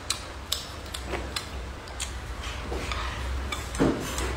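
Wooden chopsticks clicking and scraping against a ceramic bowl of fried rice as it is scooped up, a handful of sharp, irregular ticks, with chewing in between.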